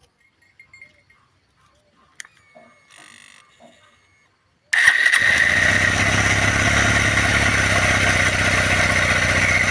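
A few faint clicks and handling noises, then about five seconds in a motor starts abruptly and runs loud and steady.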